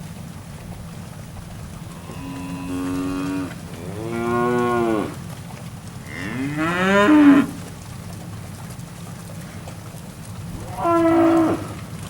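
Steers mooing: four separate calls, the third the loudest and rising in pitch, over a steady low rumble.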